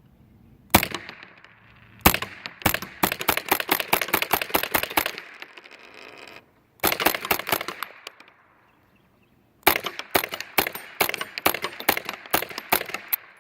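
Ruger 10/22 semi-automatic .22 LR rifle firing Armscor ammunition from a BX-25 magazine. A single shot comes about a second in, then two quick strings of rapid fire at about four to five shots a second, with short pauses between. The rifle cycles the ammunition without a stoppage.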